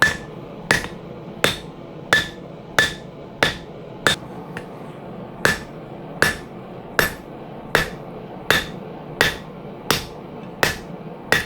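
Hand hammer striking a hot steel billet on an anvil, squaring off the back of a hammer head blank for punching. The blows come at a steady rhythm of about one every 0.7 s, each with a short metallic ring, with a brief pause a little before the middle.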